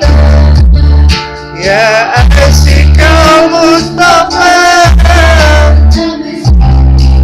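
A voice singing a wavering melody with vibrato over backing music with a heavy bass and guitar; the singing is off-key.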